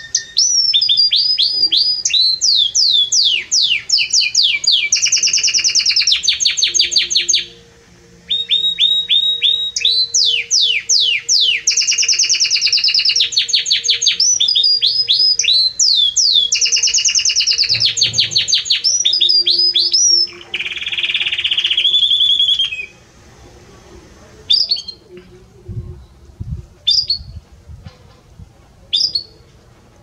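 Belgian canary singing a loud song of rapid trills and quickly repeated sweeping notes, with a brief break about seven seconds in. The song stops a little past twenty seconds, leaving a few single short chirps spaced a second or two apart.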